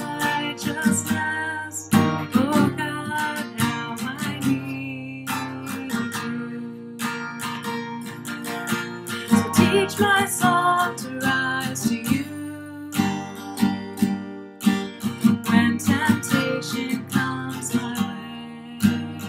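Music played on a strummed acoustic guitar, with a steady run of strokes and ringing chords.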